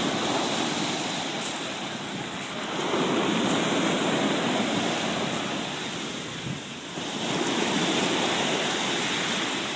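Sea waves washing onto the shore, a steady rush that swells and eases every few seconds.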